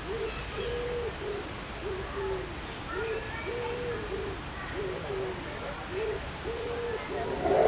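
A pigeon cooing: a steady run of short, low hooting notes, about two a second. A short rush of noise comes at the very end.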